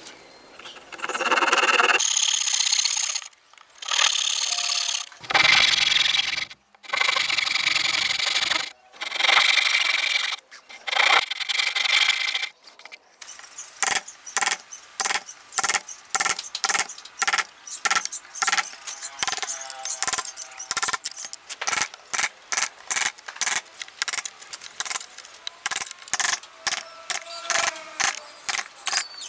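A hand saw cutting dovetails in a board held upright in a clamp, in several runs of sawing strokes of a second or two each. About halfway through, a wood chisel takes over, chopping out the waste from the dovetail sockets in a steady run of sharp taps, a little under two a second.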